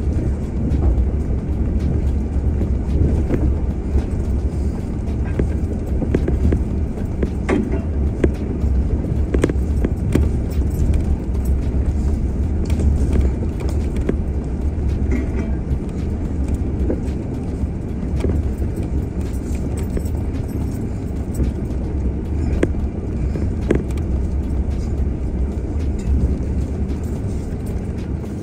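Off-road vehicle driving slowly along a bumpy dirt forest trail: a steady low engine-and-tyre rumble with occasional knocks and rattles from the rough ground.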